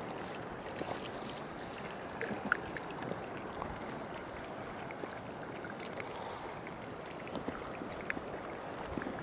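Water swishing and lapping along a kayak's hull as it is paddled through calm water, steady throughout, with scattered small splashes and drips.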